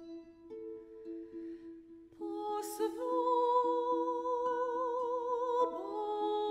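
Concert harp plucking soft single notes over a held low note; about three seconds in a soprano voice enters on a long note with vibrato, moving to another pitch near the end while the harp continues underneath.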